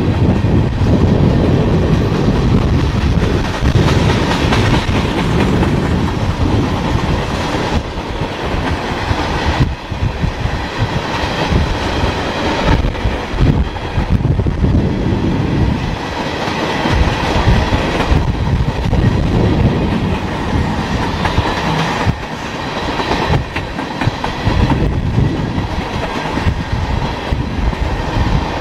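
Freight cars of a long mixed freight train rolling past: a loud, steady rumble of steel wheels on rail, with repeated clacking and knocks as the wheels cross rail joints.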